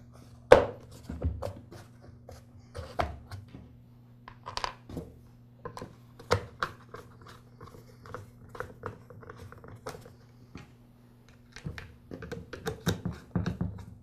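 Plastic motor housing halves of a Weed Eater XT10 electric string trimmer being handled, fitted together and screwed shut: irregular clicks, knocks and light taps, the loudest knock about half a second in and a busier run of clicks near the end, over a steady low hum.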